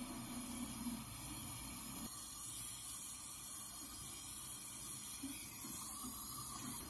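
Steady, fairly quiet hiss of a brazing torch flame heating copper refrigerant pipe joints, with a low rumble fading out in the first two seconds.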